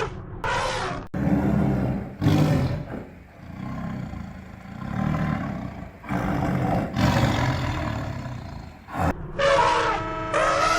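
Animal roars, several in a row, rough and noisy, with short pauses between them.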